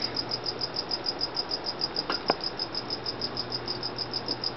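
Cricket chirping steadily, a quick even train of high chirps at about eight a second, with two light clicks about two seconds in.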